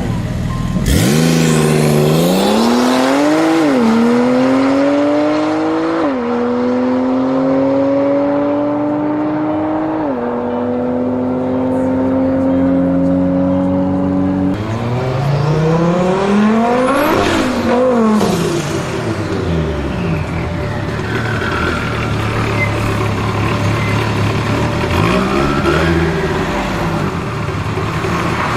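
High-performance car engine accelerating hard through the gears. Its note climbs and drops sharply at each upshift, three times in the first ten seconds, then holds steady. Further on, cars pass by at speed, the engine pitch rising as each approaches and falling away as it goes, twice.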